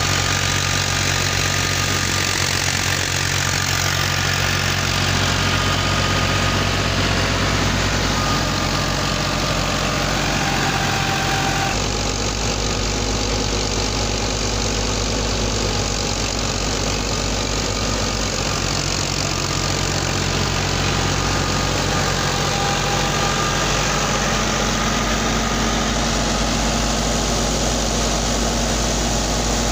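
Tractor-driven wheat thresher running steadily, its tractor engine running at a constant speed. The sound shifts abruptly about twelve seconds in.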